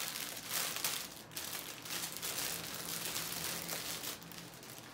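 Clear plastic packaging bag crinkling as it is opened and the hair frontal is taken out, in irregular rustles and crackles.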